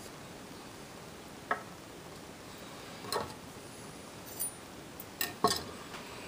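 Scattered soft clicks and knocks as butcher's twine is tied off and cut with a knife over a wooden cutting board, the loudest knock about five and a half seconds in.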